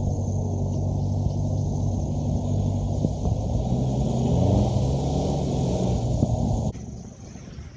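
Off-road 4x4 engine running under load during a tow-strap recovery, its revs rising and falling near the middle. About two-thirds of the way through, the sound cuts off suddenly to a much quieter engine sound.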